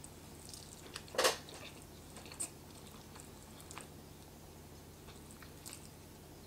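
Someone eating a forkful of instant ramen noodles: one short, louder slurp about a second in, then soft chewing with a few small mouth clicks.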